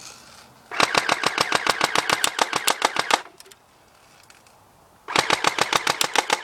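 Battery-powered airsoft P90 firing BBs on full auto: two rapid, even bursts, the first about two and a half seconds long, the second about a second and a half, starting about two seconds after the first stops.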